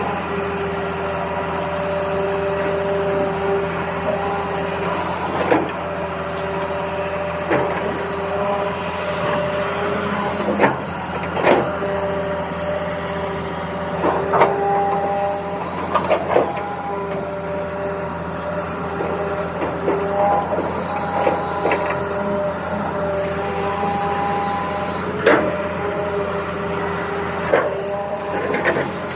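Small electric toy motor whirring steadily with a few shifting tones, with scattered sharp clicks and knocks of plastic parts.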